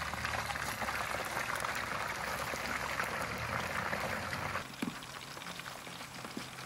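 Fresh-cut fries frying in hot oil in a deep-fry basket pot: a dense crackling sizzle and bubbling that drops off abruptly about four and a half seconds in, leaving a softer sizzle.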